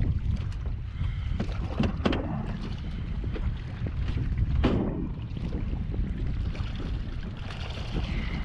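Wind buffeting the microphone over water lapping at a small boat, with a few sharp knocks and handling sounds in the boat, the loudest about halfway through.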